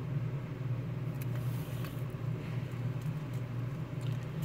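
Steady low background hum, with a few faint light ticks and rustles of plastic sleeves and paper being handled.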